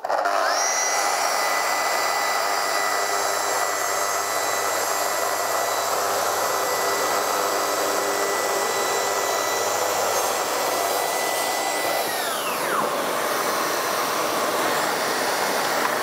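Festool TS 60 plunge track saw starting with a rising whine and cutting through an MDF board, while a Parkside PPWD 30 A1 workshop vacuum draws the dust off through a hose at the saw. About twelve seconds in, the saw's whine winds down and the vacuum keeps running.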